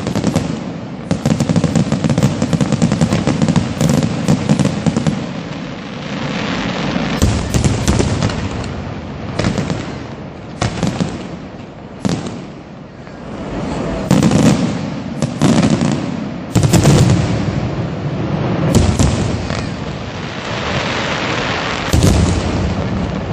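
Aerial fireworks: a dense, rapid crackle of bursting shells for the first few seconds, then single loud shell bursts every second or few, with crackling and hissing between them.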